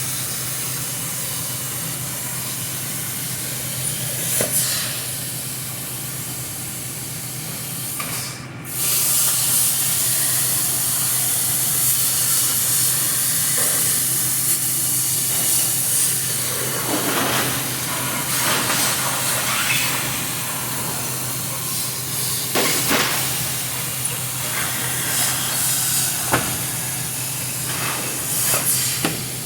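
A steady hissing spray over a low, even hum. The spray cuts out briefly about eight seconds in and comes back louder.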